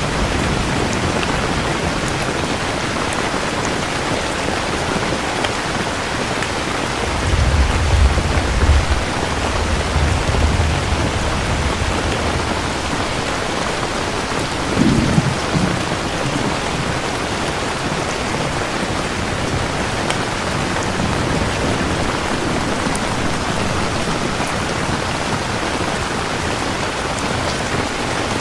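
Steady heavy rain, with distant thunder rumbling low about a quarter of the way in for several seconds and again briefly around the middle.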